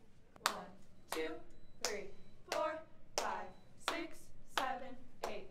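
Hands clapping a steady beat, about eight claps roughly evenly spaced, keeping time for a drill count.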